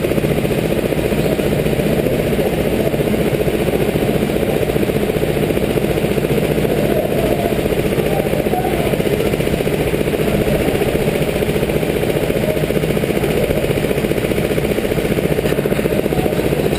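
Rental kart engines idling in a queue, the nearest one close to the microphone running with a steady, fast, even putter and no revving.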